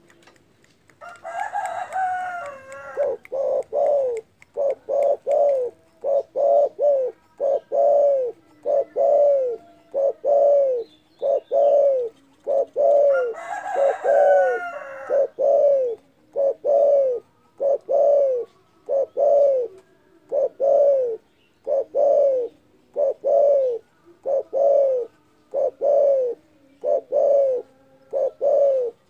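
Spotted dove (derkuku) cooing over and over: a long run of low, arched coos, about one a second, in short phrases.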